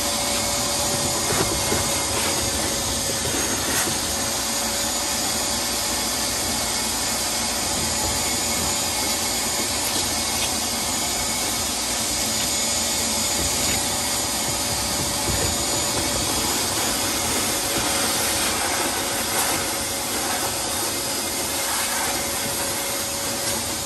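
Wet/dry shop vacuum running steadily with a constant motor whine, its hose nozzle sucking sudsy standing water out of the bottom of a dishwasher tub whose drain is backing up.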